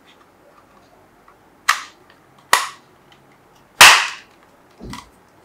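Four sharp plastic clicks and snaps, roughly a second apart, the third the loudest, as the parts of a handheld infrared thermometer's plastic casing are pressed back together during reassembly.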